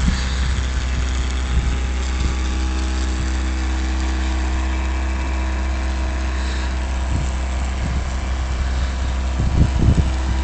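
A vehicle engine running steadily with an even hum, with a few low thumps near the end.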